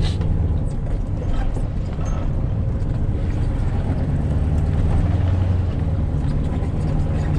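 A vehicle's engine and road noise heard while driving: a steady low hum with no breaks.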